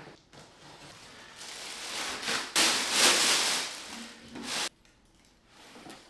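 A shipping box being opened: packaging rustles and scrapes for about three seconds, loudest with a sudden rough burst about two and a half seconds in, then stops.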